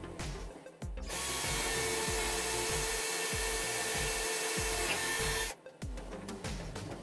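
Cordless drill running at steady speed, boring a hole into a wooden workbench top; it starts about a second in and stops abruptly after about four and a half seconds. Background music plays underneath.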